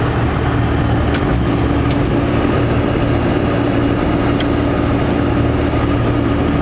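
Cummins diesel engine of a Dodge Ram pickup running steadily as the truck drives, heard from inside the cab as a constant low drone.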